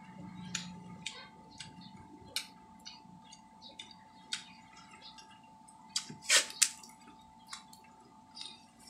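Close-up eating sounds of a man chewing and peeling mango by hand: scattered wet mouth clicks and smacks, with two louder crackling sounds about six seconds in.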